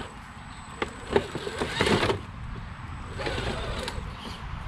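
Redcat Gen8 RC rock crawler clambering over logs: a few sharp knocks about a second in, then two bursts of scraping as its tyres and chassis grind on the wood.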